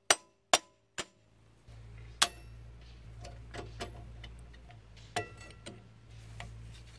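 Three sharp hammer taps on the steel handbrake lever of a drum-brake shoe, about two a second. Then light metallic clicks and clinks of pliers working the handbrake cable and spring on the brake backing plate, over a steady low hum.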